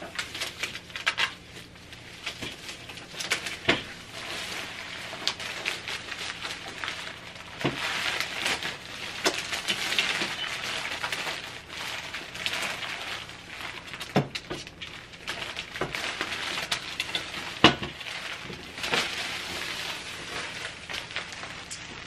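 Plastic wrap crinkling and rustling as it is pulled off and handled, with several sharp knocks along the way.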